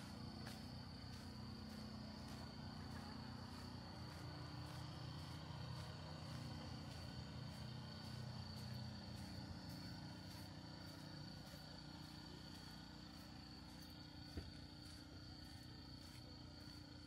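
Steady low motor-like hum under a continuous thin, high insect trill from crickets. A single short click about fourteen seconds in.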